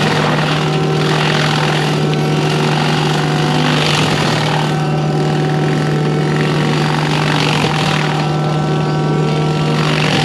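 Excavator-mounted forestry mulcher running: a steady drone from the machine with a hiss of mulching that swells and eases every second or two.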